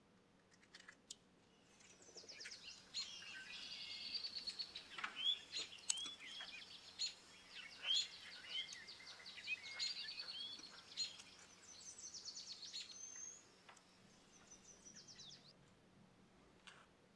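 Small birds chirping and twittering in quick, high trills, starting about two seconds in and fading out near the end, with a few soft clicks.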